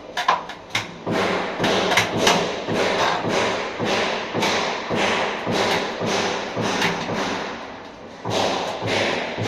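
Repeated striking blows, about two a second, at an even pace, with a short pause about eight seconds in before they resume.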